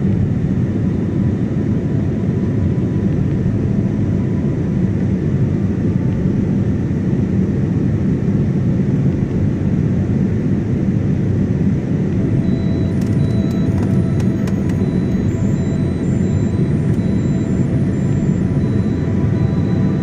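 Steady cabin noise of an Airbus A320-family airliner in flight: an even, deep rush of engines and airflow heard from inside the cabin at a window seat.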